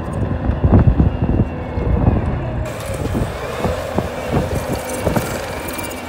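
Bobcat compact track loader's diesel engine running under load as the machine pushes dirt and debris with its bucket, with frequent clanks and scrapes from the bucket, tracks and debris.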